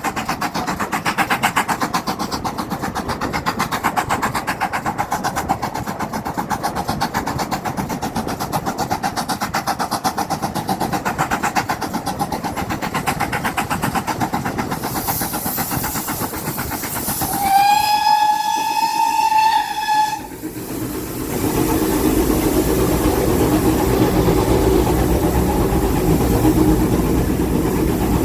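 A train running with a fast, even rhythm, then a locomotive whistle sounding once for about two and a half seconds, followed by a steadier, lower rumble of the train.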